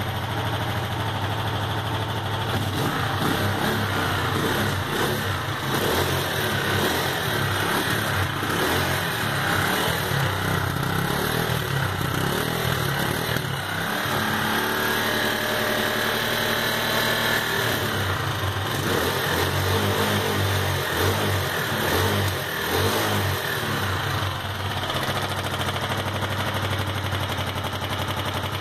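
Sundown Max 125's single-cylinder four-stroke pushrod engine running, with stretches where it is revved up. Its top end is freshly rebuilt, and only the normal valve clatter of a pushrod engine remains.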